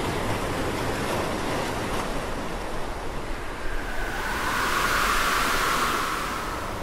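Ocean surf: a steady wash of waves, with one wave surging up louder about four seconds in and fading away near the end.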